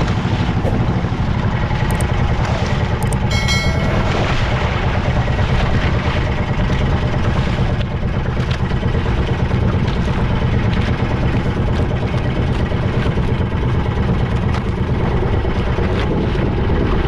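Fishing boat's engine running steadily, a constant low drone, with a brief higher tone about three seconds in.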